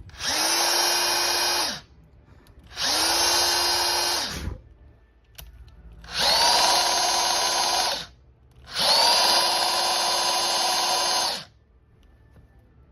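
Makita HR183D 18V cordless rotary hammer run in four short bursts, its motor spinning up, holding speed and winding down each time. The tool is listed as making an abnormal noise.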